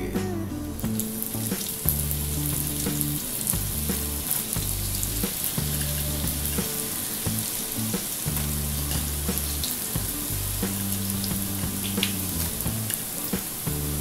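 Small rolled spring-roll pastries frying in hot oil in a wok: a steady sizzle of bubbling oil that starts about a second in as they go into the oil.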